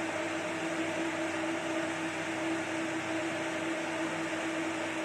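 Electric blender running at a steady speed with a constant motor hum, pureeing a banana, egg, yogurt and honey mixture, switched off suddenly at the very end.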